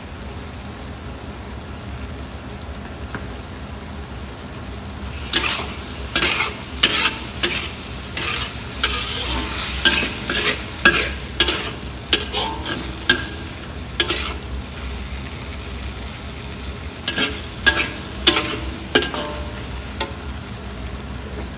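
Metal spatula scraping and tossing stir-fried salted mustard greens and meat in a wok, over a steady sizzle. The scraping and clinking strokes start about five seconds in, go on for roughly ten seconds, pause, and come back for a few strokes near the end.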